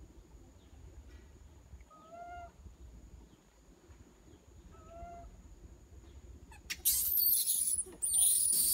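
Infant long-tailed macaque calling: two short, soft calls a few seconds apart, then shrill, high-pitched screaming from about seven seconds in, by far the loudest sound. It is the crying of a hungry infant wanting to nurse from its mother.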